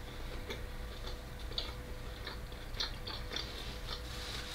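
Close-miked chewing of food: soft, irregular wet clicks and small crunches from the mouth, with a faint steady hum underneath.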